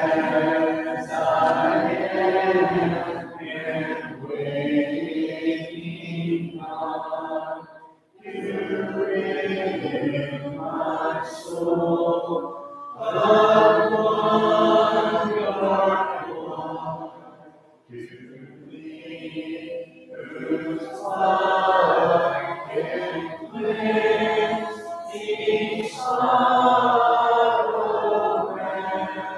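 Congregation singing a hymn a cappella, unaccompanied voices, in long sung lines with brief pauses between them.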